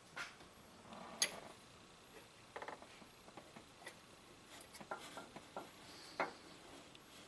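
Light clicks, knocks and short scrapes of metal on metal as a Subaru boxer engine's cylinder head is handled and set onto the block, the loudest a sharp click about a second in.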